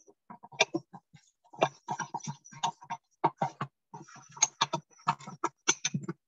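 Small mortar and pestle crushing and grinding whole cubeb peppercorns and cloves: an irregular run of short knocks and gritty clicks, several a second.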